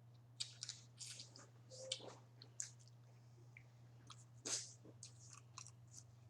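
Crawfish being peeled and chewed close to the microphone: short scattered wet smacks and crackles, the loudest about four and a half seconds in, over a faint steady low hum.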